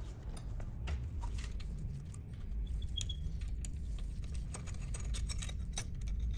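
Scattered light metallic clicks and clinks as a homemade valve-spring compressor tool, a machined angle bolted over the valves, is unscrewed bit by bit from a Lycoming engine's cylinder head to release the valve springs. Beneath them is a steady low hum.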